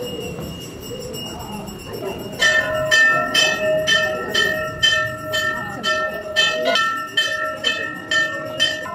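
Large brass temple bell rung over and over, about two strokes a second, starting about two and a half seconds in, each stroke ringing on into the next. Before it, a murmur of voices.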